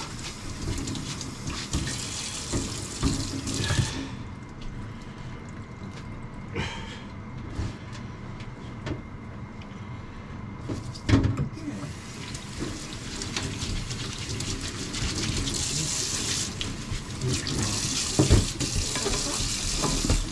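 Kitchen tap running into a sink, stopping about four seconds in and running again from about eleven seconds on, with occasional knocks of things handled in the sink.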